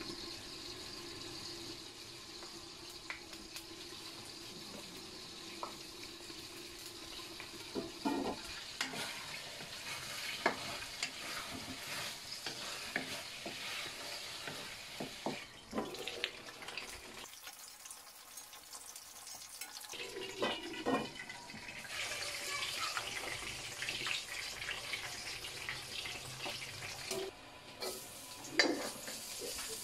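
Pork longganisa sausages frying and sizzling in a stainless-steel wok. A wooden spatula stirs them, scraping and knocking against the pan in many short ticks.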